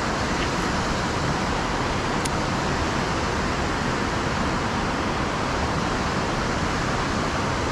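Steady rushing of water, an even unbroken noise that keeps the same level throughout.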